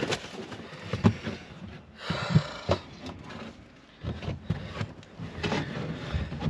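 Several dull knocks and scuffs on an aluminum boat hull as someone moves about on its snow-covered floor, with a short rustling stretch about two seconds in.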